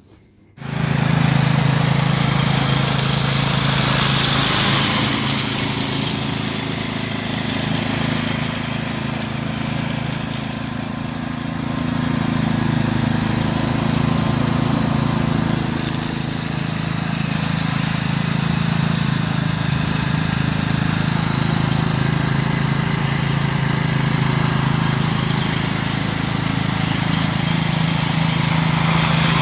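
Cub Cadet CC30H riding mower running steadily as it mows over fallen leaves, picking them up into its rear bagger. It comes in suddenly about half a second in and holds a steady engine hum to the end.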